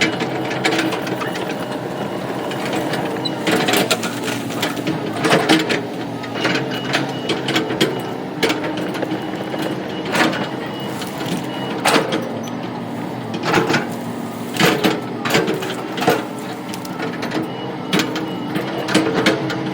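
A machine's engine running steadily, with frequent sharp knocks and clanks over it.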